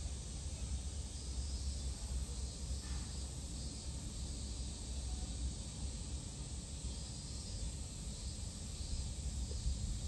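Steady background noise: a low rumble with an even hiss over it and no distinct event.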